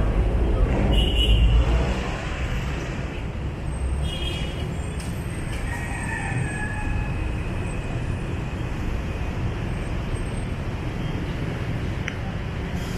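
Street traffic noise: engines running and tyres on the road, with a louder low rumble from a nearby vehicle in the first two seconds, then a steady traffic hum.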